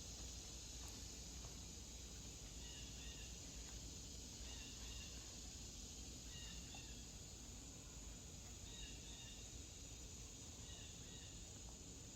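Faint outdoor ambience: a steady, high-pitched insect drone, with faint short chirps every second or two.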